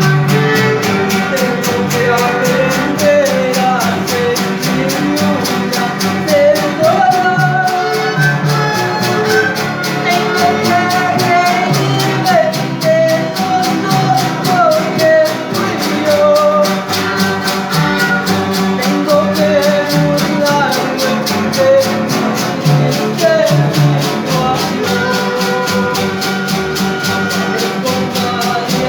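A Latin-American band plays a song with a melodic lead line over sustained chords and a steady, fast percussion rhythm.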